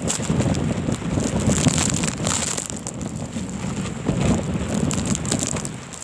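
Strong blizzard wind blowing hard across the microphone, gusting up and down.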